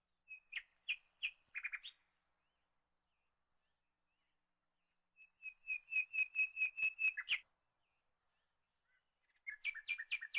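Small bird calling: three bouts of quick, repeated high chirps, about five a second, the middle bout the longest and loudest.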